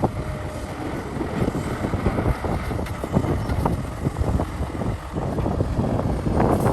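Cat 6015B hydraulic mining excavator working, its engine running under heavy wind buffeting on the microphone.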